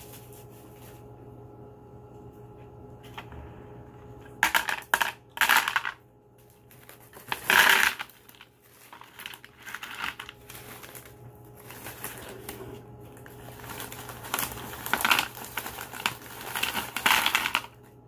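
Small decorative stones clattering as they are dropped and set into the plastic basin of a tabletop water fountain, mixed with a plastic bag crinkling, in irregular bursts.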